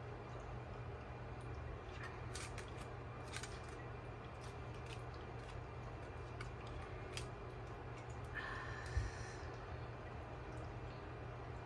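Oracle cards being handled and laid down on a wooden table: faint clicks and light slides, with a soft knock about nine seconds in, over a steady low hum.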